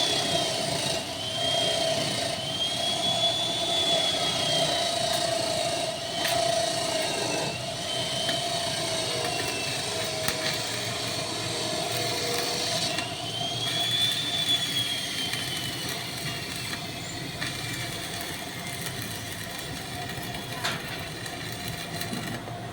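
A motor's high whine that keeps sagging and recovering in pitch over a steady lower hum, with a few sharp knocks, around a third of the way in, halfway and near the end.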